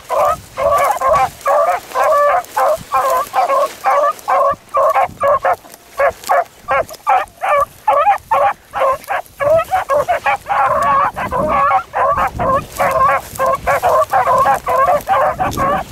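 Beagles baying, a quick run of short barks and bawls from hounds trailing a rabbit. The cries thin out for a few seconds in the middle, then come thick again.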